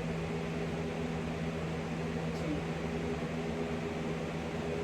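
Electric fan running steadily: an even whooshing hum with a low steady drone.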